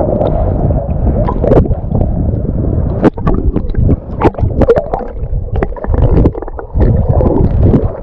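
Black Sea waves breaking and water sloshing close to the microphone: a loud low rumble with many sharp splashes.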